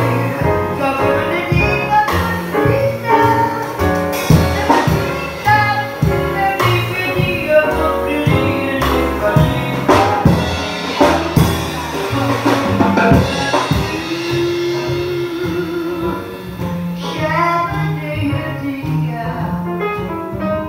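Live jazz band: a woman sings with grand piano, upright bass and drum kit.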